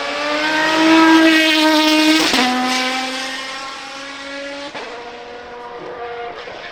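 Naturally aspirated racing car engine accelerating hard: its note climbs, then drops sharply at an upshift about two seconds in, climbs again and drops at a second upshift near five seconds.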